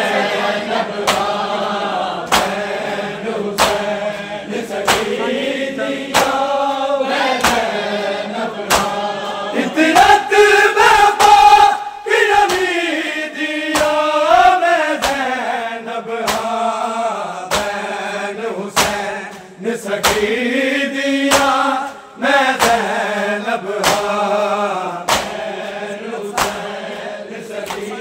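Male voices chanting a Punjabi noha, a Shia lament, over a steady beat of sharp hand slaps as a crowd of bare-chested mourners beats their chests in matam. The singing swells loudest about ten seconds in.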